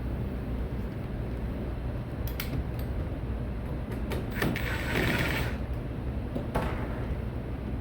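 Steady low hum of server-room equipment, with rubbing and sliding handling noises and a brief hiss about five seconds in.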